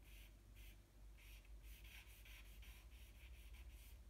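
Faint scratching of a stick of drawing charcoal on paper in short repeated strokes, about two or three a second, as a small area is filled in dark.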